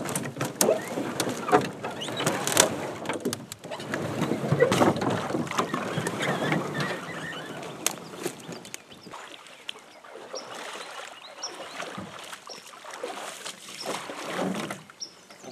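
Canoe hull scraping and knocking over the piled sticks of a beaver dam as it is hauled across, with branches cracking underfoot. The knocks and scraping are loud for the first half, then give way to quieter sounds as the canoe is pulled through shallow water.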